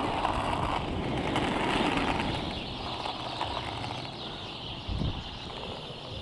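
Skate wheels rolling over rough asphalt: a steady rumble with wind and handling noise on the microphone, and a single thump about five seconds in.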